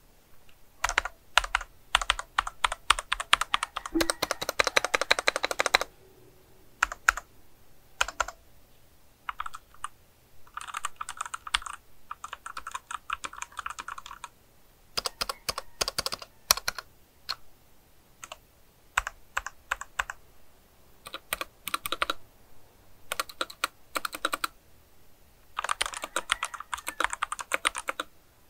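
Typing on a Womier WK61 60% mechanical keyboard with Outemu Red linear switches: runs of rapid keystroke clicks in bursts of a few seconds, with short pauses between them.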